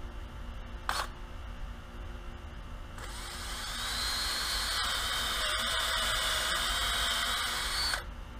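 Cordless drill spinning a coring tool onto the end of aluminum-shielded hardline coaxial cable, coring out the dielectric and shield. It starts about three seconds in with a whine that rises in pitch and then holds, runs for about five seconds, and cuts off suddenly; a sharp click comes about a second in.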